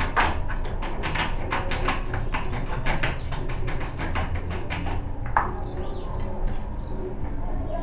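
A rapid series of sharp taps, several a second, stopping about five and a half seconds in.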